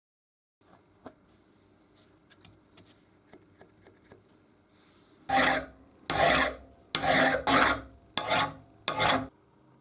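Hand file worked over steel: faint light taps and scrapes, then six loud filing strokes in the second half, about one and a half a second.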